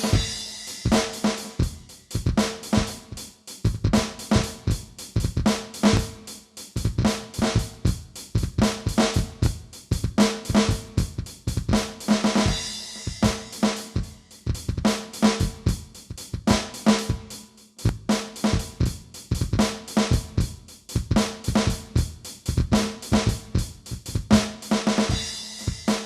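Aroma TDX-16S electronic drum kit sounding a continuous drum-kit groove of rapid, regular strikes throughout.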